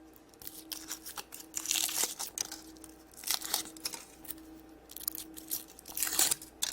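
Foil wrapper of a Kinder Surprise chocolate egg being torn and crinkled open by hand, in several bursts of rustling.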